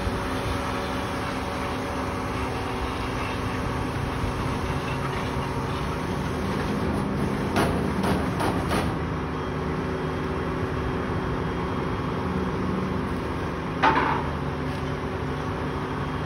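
Roll-off garbage truck's diesel engine idling steadily. A cluster of metal clanks comes about seven to nine seconds in, and a single sharp ringing metallic clang comes near the end.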